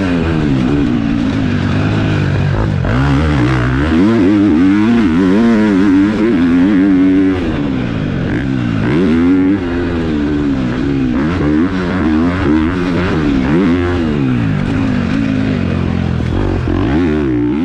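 Four-stroke KTM motocross bike fitted with an aftermarket exhaust, its single-cylinder engine revving up and falling back again and again as the throttle is worked and the gears shift through a ride.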